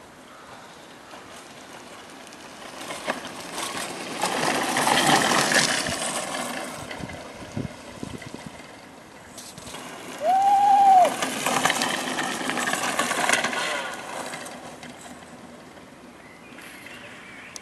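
Homemade go-kart driving past on asphalt twice, its motor and tyre noise rising and fading away each time. A short high tone rises and falls partway into the second pass.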